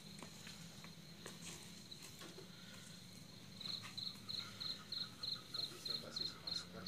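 A cricket chirping in a regular high-pitched pulse, about three chirps a second, starting about halfway through, over a faint low steady hum.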